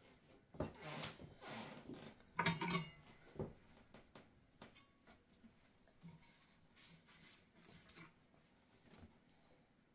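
Food-preparation handling at a kitchen counter: rustling, knocks and a short ringing clink over the first three and a half seconds, then faint scattered taps.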